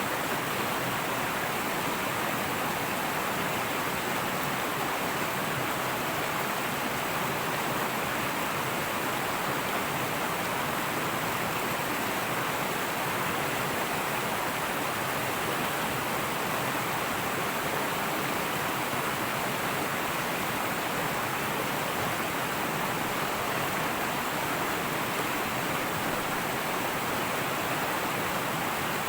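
Fast-flowing river water rushing and babbling steadily over rocks.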